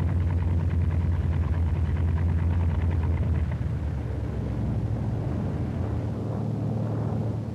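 Grumman TBF Avenger's Wright R-2600 fourteen-cylinder radial engine running with a steady low drone. About three and a half seconds in it drops off as the engine is shut down and the propeller winds down.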